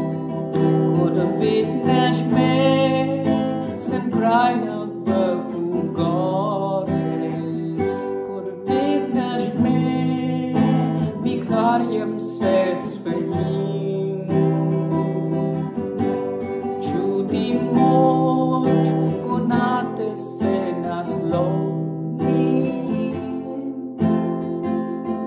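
A man singing in Slovenian to his own acoustic guitar accompaniment.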